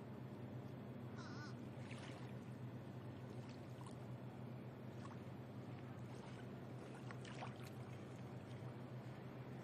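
Quiet harbour waterfront ambience: a steady low hum with small waves washing on the beach, and a few faint short bird calls.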